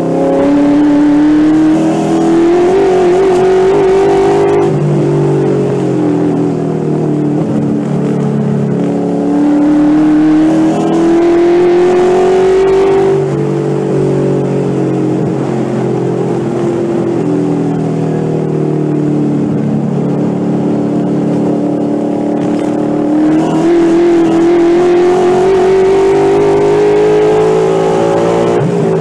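Ford 5.0L Coyote V8 in a Mustang race car running hard on track, heard from inside the car. The revs climb, fall back about 5 and 14 seconds in, and climb steadily again over the last several seconds toward about 6,600 rpm.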